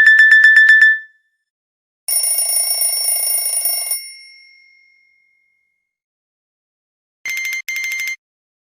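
Nokia E63 alert tones played back in turn. A fast electronic beeping, about nine beeps a second, stops about a second in. About two seconds in, a high ringing alert sounds for about two seconds and fades out. Near the end come two short electronic blips.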